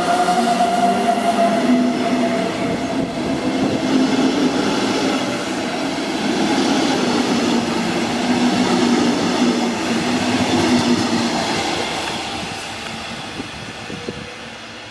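Electric-locomotive-hauled double-deck passenger train rolling past along a station platform: a steady electric motor hum over the rumble of the coaches' wheels, fading away over the last few seconds.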